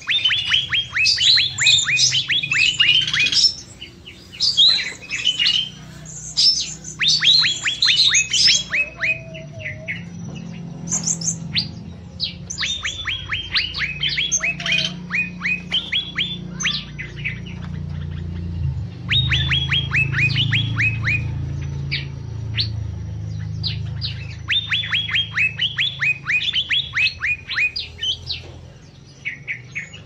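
Cucak mini songbirds singing: rapid runs of sharp falling chirps, several a second, in repeated bursts with short pauses between. A steady low hum lies underneath.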